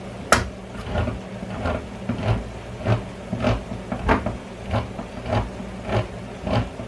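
Hand-cranked can opener working around a can of fire-roasted diced tomatoes, clicking evenly about one and a half times a second, over a low steady hum.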